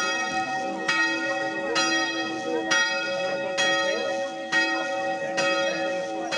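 The bronze church bell of Boncourt, cast in 1400 and said to have silver melted into its bronze, ringing: struck at a steady pace of about one stroke a second, about seven strokes, each ring carrying over into the next as a lingering hum.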